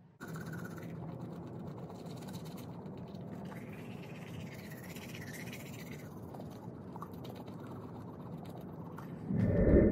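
Teeth being brushed with a toothbrush, a scratchy scrubbing over a steady low hum. A loud low thump near the end.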